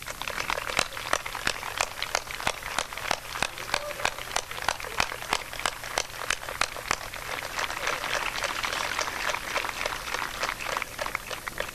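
Large crowd applauding, the clapping thickest in the middle and thinning out near the end.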